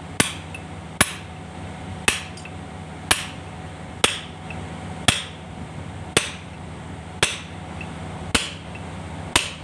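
Hammer striking a steel punch held on the key in a V-belt pulley's hub on an electric motor shaft, ten even blows about a second apart, each with a short metallic ring. The key is being peened flat so that the loose pulley tightens on the shaft.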